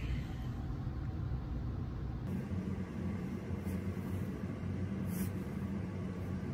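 Steady low rumble of road traffic, changing in tone about two seconds in, with a couple of faint clicks.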